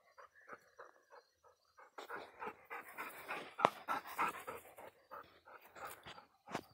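A dog panting in quick, rhythmic breaths, fainter at first and stronger after about two seconds.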